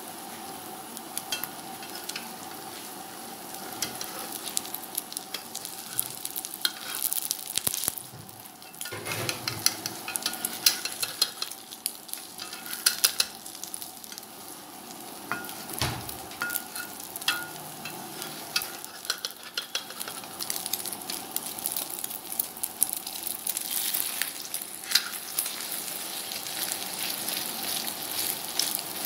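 Egg omelette frying in hot oil in a wok, a steady sizzle full of crackles. A metal spatula scrapes against the pan as the omelette is lifted and turned, with one dull knock about halfway through.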